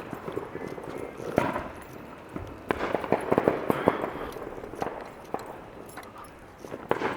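Consumer fireworks and firecrackers going off: sharp pops and bangs at irregular intervals, with a dense crackling cluster about three seconds in and another burst near the end.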